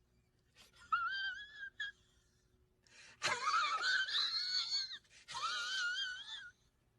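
High-pitched, wavering squeaky wheezes from a person straining to hold back a cough, three of them. The middle one is longer, breathier and loudest.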